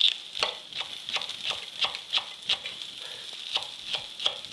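Chef's knife slicing a scallion on a wooden cutting board, sharp taps about three a second, over the steady sizzle of cod steaks frying in oil in a skillet.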